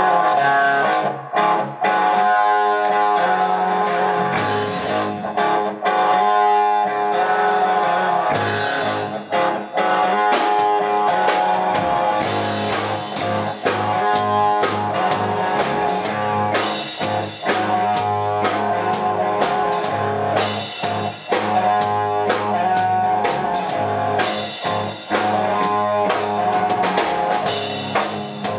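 Rock band playing an instrumental intro led by guitar, with drums; the low end fills in about four seconds in and again around twelve seconds in.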